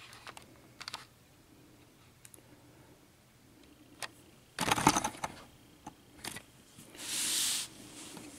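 Small metal clicks and rattles of a picked-open half euro cylinder lock and its picking tools being handled, with a dense burst of clicking about halfway through and a brief scraping rub near the end.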